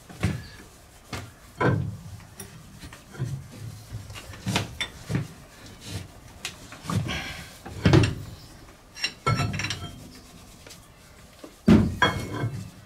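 Irregular metallic clinks, knocks and scraping of hand tools and loose parts on a stopped marine steam engine's low-pressure crosshead and connecting rod as it is being dismantled, with the loudest knocks about eight and twelve seconds in.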